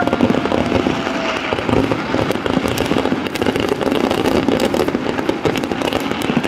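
Kerala temple-festival fireworks (vedikkettu) going off: a dense, continuous crackle of many small overlapping bursts and pops from aerial shells.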